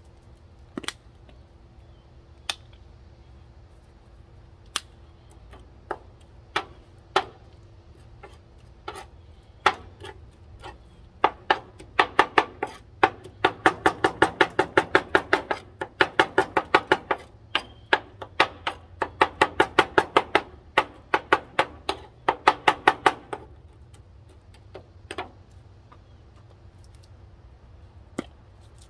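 A large knife chopping on a plastic cutting board: single knocks at first, then a run of rapid chopping at about four strokes a second for around ten seconds through the middle, then single knocks again near the end.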